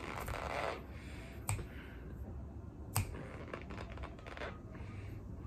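Close-up mouth sounds of a person chewing a big spoonful of food: squeaky, crunchy chewing. A noisy burst comes in the first second, with two sharp clicks about a second and a half and three seconds in.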